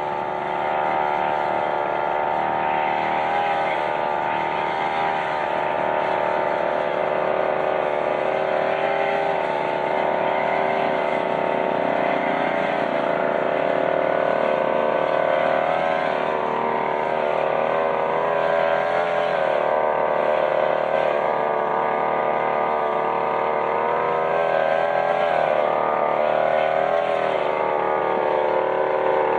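Backpack brush cutter's small petrol engine running at high speed while trimming grass, its pitch wavering up and down as the cutting head meets the grass.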